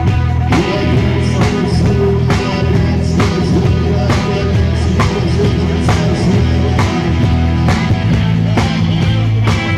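Rock band playing live: drums keeping a steady beat under bass and electric guitar.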